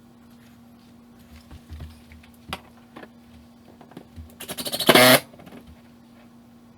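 Scattered knocks and clicks, then a quickening rattle that ends in a short loud burst about five seconds in, over a steady low hum.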